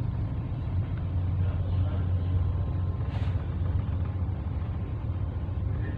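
Steady low drone of the ferry MV Santa Brigida's engines, heard inside the passenger deck.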